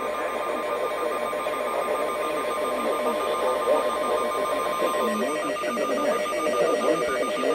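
NOAA Weather Radio emergency alert tone: a steady single tone of about 1050 Hz that cuts off about five seconds in. Under it, a fast-pulsing electronic beep runs throughout, over a rough, warbling radio noise.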